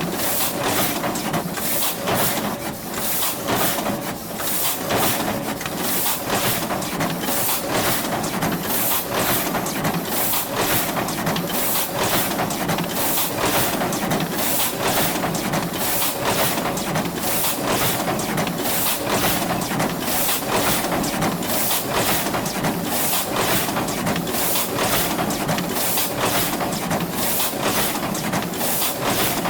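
Industrial cutting machine running steadily, with sharp repeated strokes about two or three a second over a continuous mechanical drone.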